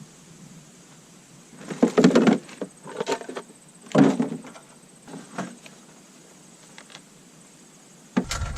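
Irregular knocks and rattles of objects being handled, loudest about two and four seconds in. A steady low rumble starts suddenly near the end.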